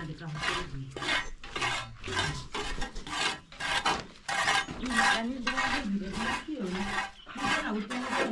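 Rhythmic rasping scrapes, about two strokes a second, each a short dry stroke.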